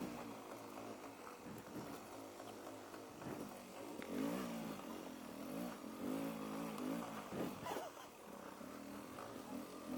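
Off-road motorcycle engine revving in bursts, its pitch rising and falling with the throttle, loudest about four seconds in and again near the end.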